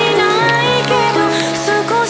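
Background music: a melodic track with held notes over a sustained bass line.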